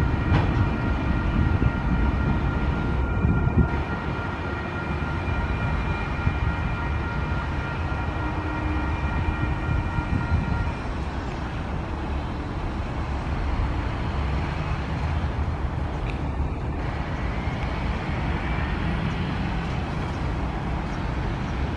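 Tasrail TR class diesel locomotive TR10 and its train of cement hopper wagons passing with a steady low rumble. A steady high-pitched tone sounds over the rumble and stops about halfway through.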